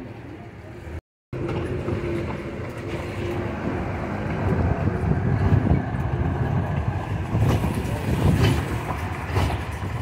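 Horse-drawn carriage rolling along a city street: a dense rumble and rattle from the wheels and carriage body, with some sharp knocks in the second half. The sound cuts out completely for a moment about a second in.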